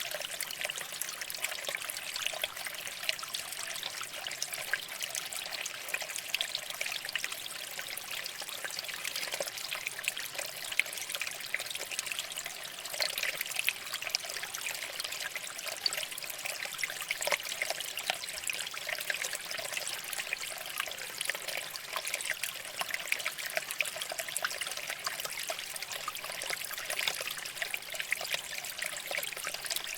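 Shallow water flowing and trickling over rocks: a steady babble made of many small splashes, with no let-up.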